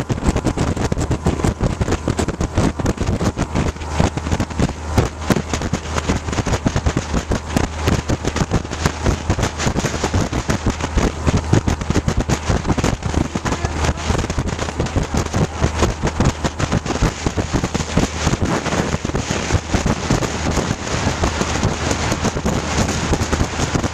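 Motorboat running at speed with wind buffeting the microphone: a dense, continuous crackling rush over the steady low drone of the boat's motor.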